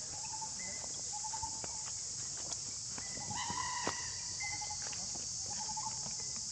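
Steady high-pitched drone of insects, with short pulsing chirps repeating about once a second and a brief, higher animal call about halfway through.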